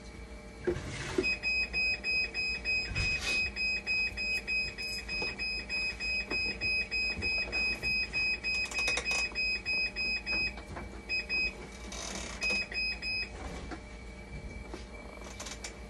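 Hemodialysis machine's alarm beeping rapidly and high-pitched, about three beeps a second, while the machine starts up. The beeping stops about ten seconds in, then sounds again in two short spells, over a steady machine hum and a few handling knocks.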